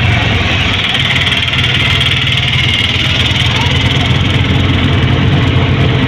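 Auto-rickshaw engine running steadily as it drives, heard from inside the open cabin: a steady low throb under a wash of road and traffic noise.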